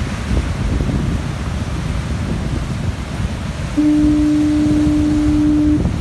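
Lighthouse foghorn sounding one steady, low, single-pitched blast of about two seconds, starting about four seconds in and cutting off sharply. Underneath runs the constant rumble of heavy surf breaking on rocks, with wind on the microphone.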